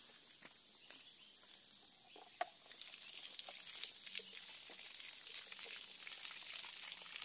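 Water pouring and splattering out of a plastic-bottle fish trap into a shallow stream as the trap is drained to check the catch, growing denser about three seconds in.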